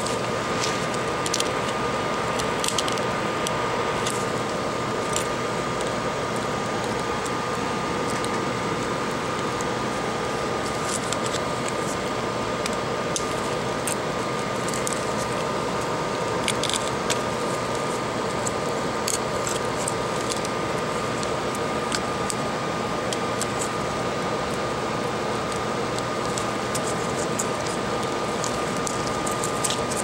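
Steady mechanical hum with a held tone, under scattered light clicks and scrapes from gloved hands handling an opened iPad mini's metal frame, plastic pry card and tools.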